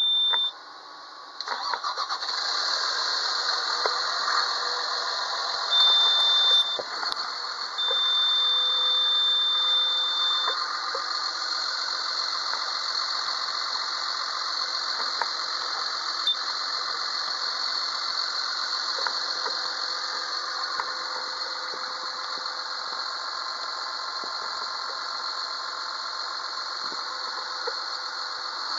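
2004 Case IH MX285's diesel engine cranking and starting about a second and a half in, then running steadily, heard from inside the cab. A high steady beep sounds at the start, again around six seconds in, and for a couple of seconds around eight seconds in.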